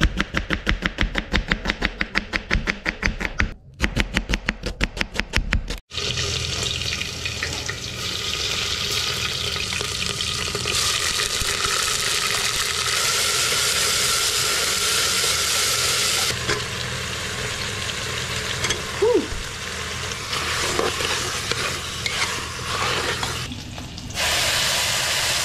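A knife slicing red onion on a board in quick, even strokes, several a second, for about the first six seconds. Then hot oil sizzling steadily in a pot as food fries.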